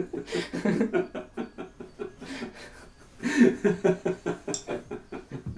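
A man laughing heartily in quick repeated bursts, with a louder, breathier bout starting about three seconds in.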